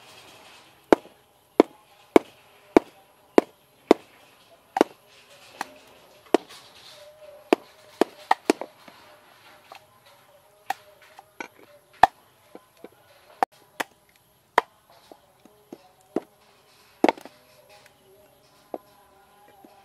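Cleaver chopping garlic on a round wooden chopping board: a string of sharp knocks of the blade striking the wood, about one every half second at first, then more uneven and spaced out.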